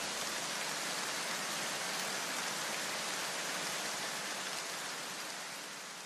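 Steady rain-like hiss of noise from the background soundtrack, with no tune. It fades away near the end.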